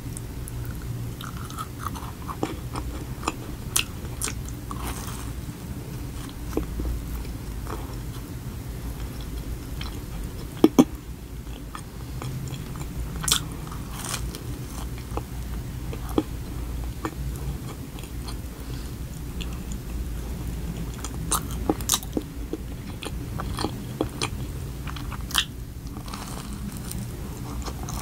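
Close-miked biting and chewing of a chocolate Oreo donut: soft chewing with scattered sharp crunches and mouth clicks, a few louder ones now and then.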